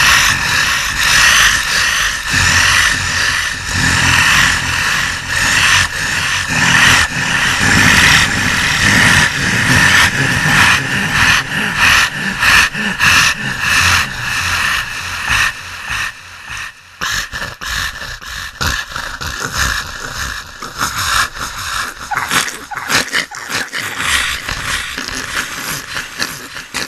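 Beast panting and choking sound effects: fast, raspy, growling breaths with choking gasps, quieter and more broken in the second half.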